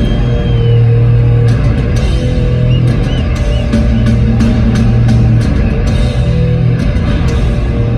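Heavy metal band playing loud through a concert sound system, recorded from the crowd: distorted guitar and bass holding long low notes under drum and cymbal hits.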